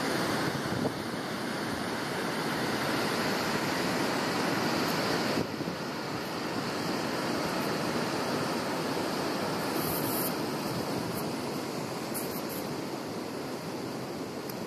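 Ocean surf breaking on a rocky beach, heard as a steady rushing noise mixed with wind. The level drops suddenly about five seconds in.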